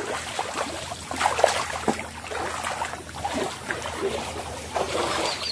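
Shallow creek water splashing and trickling as a child scoops and paddles in it with her hands, in small irregular splashes.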